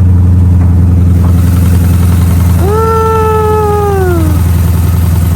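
Car engine idling close by, a loud, deep, steady drone. About three seconds in, a single drawn-out call falls in pitch over about a second and a half.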